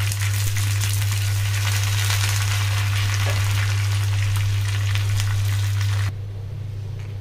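Hot oil sizzling and crackling in a small tadka pan as mustard seeds, green chillies and curry leaves fry, over a steady low hum. The sizzle cuts off suddenly about six seconds in.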